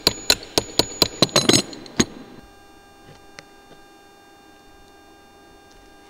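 Rapid, evenly spaced sharp knocks of a metal hand tool working at the rusted fixing screws of a roof-mounted blue beacon, about four a second. They bunch together briefly and stop about two seconds in, leaving a faint steady hum.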